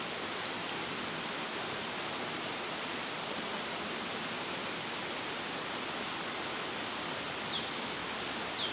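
Steady rushing of a small forest stream, an even hiss of flowing water with no change. Two short, high, falling chirps come near the end.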